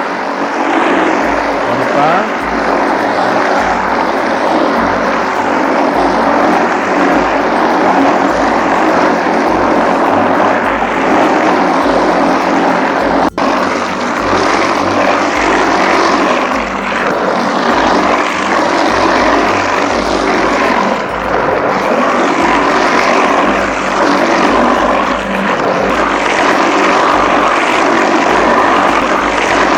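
SJ22 bakso mixer, a 2200-watt high-speed grinder-mixer spinning at 2800 RPM, running loud and steady as its blades grind beef, seasoning and egg into smooth meatball paste. A single sharp click about 13 seconds in.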